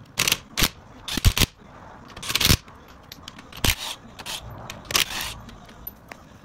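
Cordless impact wrench (DeWalt 20V XR) firing in a series of short bursts, each well under half a second, running lug nuts onto a truck wheel's studs.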